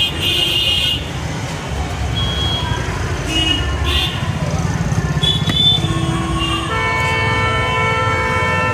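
Street traffic rumbling, with vehicle horns honking: short high toots in the first second and again midway, then one long horn blast of about two seconds near the end.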